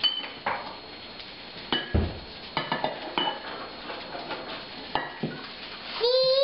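Stainless steel cup knocking and clinking against a glass bowl as spinach leaves are tipped out, with several sharp, briefly ringing clinks. Near the end, a short high-pitched vocal sound.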